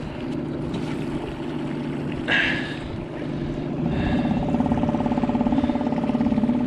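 Inflatable boat's outboard motor running steadily under way, its note rising and getting louder about four seconds in as the boat speeds up to trolling pace. A brief hiss a little over two seconds in.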